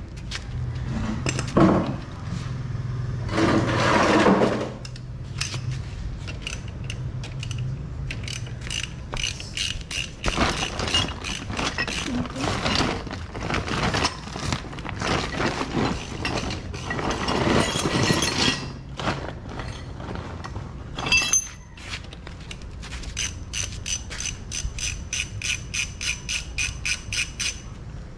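Ratchet wrench clicking in bursts, with scattered metal tool clatter. Near the end the ratchet makes a steady run of quick, even clicks.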